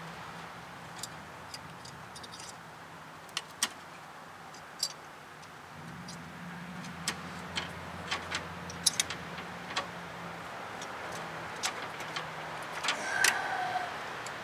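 Small metal hand tools and a brake line fitting clinking and ticking, with scattered sharp clicks that get busier near the end, over a low steady hum.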